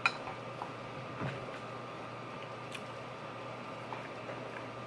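Quiet room tone: a steady low hum and hiss, broken by a few faint small clicks, the clearest right at the start and a soft bump about a second in.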